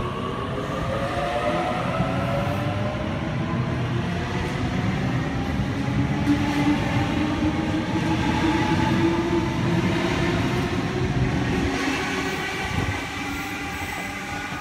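Sydney Trains double-deck electric train pulling out of the station. Its motor whine climbs in pitch as it speeds up, then settles into steady running with a rumble that drops away about thirteen seconds in as the train leaves.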